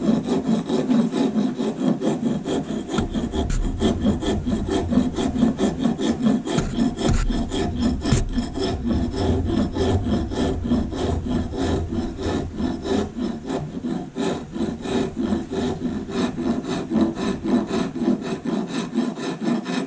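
Wood rasp scraping back and forth across a carved wooden tail in quick, even strokes. It is worked cross-grain with a lighter hand to smooth out the grooves that its teeth leave along the grain.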